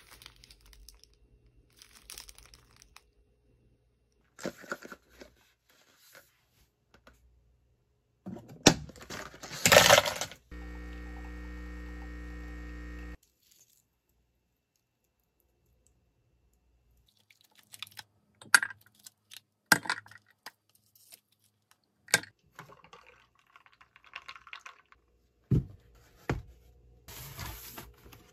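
A run of household handling noises: a loud noisy scrape or rustle about nine seconds in, a steady hum for about three seconds, a pause, then scattered sharp clicks and knocks.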